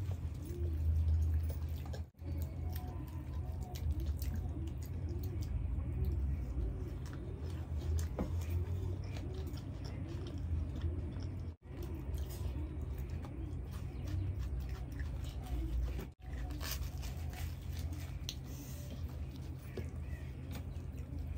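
Close-miked chewing and wet mouth sounds of people eating chole bhature, with puffy fried bread being torn and dipped into thick chickpea curry. The sound breaks off briefly three times.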